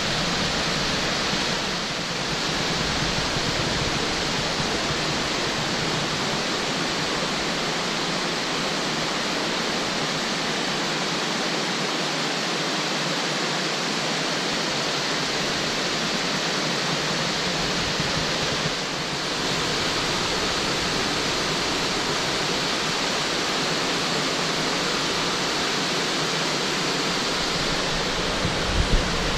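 A tall, 90-metre waterfall and the rocky cascades below it: a steady rush of falling water. A brief low thump near the end.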